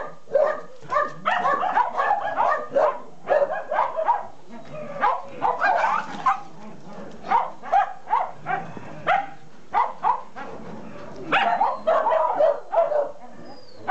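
Mixed-breed dogs barking repeatedly, short sharp barks coming in quick runs that overlap, with brief lulls between runs.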